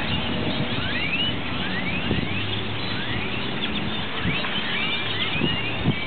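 A large flock of purple martins calling in flight: many short, overlapping rising chirps, over a steady low rumble.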